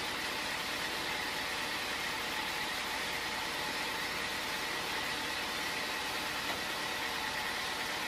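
Band sawmill running steadily at idle, not cutting: an even hiss of the machine with a faint steady whine.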